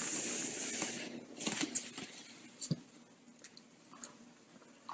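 Dog rubbing and wriggling on a wooden floor: a rustling scuff of fur on the boards that is loudest in the first second, then a few light taps and clicks as it shifts.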